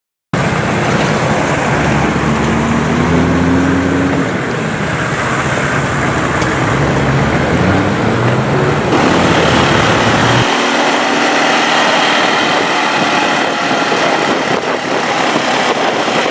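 Off-road vehicle engine running, its revs rising and falling, under a loud rushing noise. About ten seconds in the deep engine rumble suddenly drops away, leaving mostly the hissing rush.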